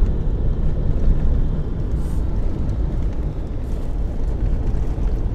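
A truck driving, heard from inside the cab: a steady low rumble of engine and road noise.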